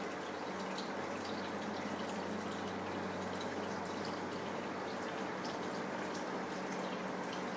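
Aquarium air stones bubbling, the bubbles breaking at the water surface in a steady fizz of small pops and drips, over a steady low hum from the tank's pumps.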